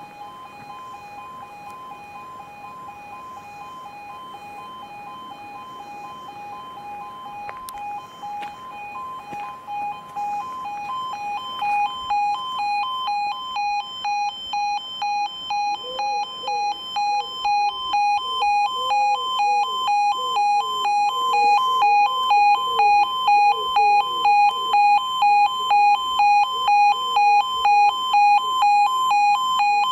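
E2S Appello level crossing alarm sounding its pulsing two-tone warning while the half barriers are down, at just under two pulses a second. It grows steadily louder and is very close by near the end.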